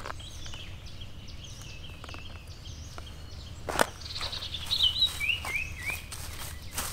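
Songbirds chirping over a steady outdoor background, with a run of short notes stepping down in pitch about four to six seconds in. A single sharp knock sounds a little before four seconds in.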